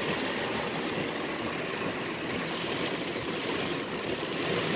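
Heavy rain pelting a car's roof and windshield, heard from inside the cabin as a dense, steady patter.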